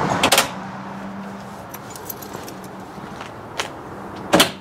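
Keys jangling in the tailgate key switch of a 1989 Chevrolet K5 Blazer, then the power tailgate window motor running with a steady low hum as the glass lowers, and another jangle of keys near the end. The motor runs slowly, which the owner suspects is a ground issue rather than a failing motor.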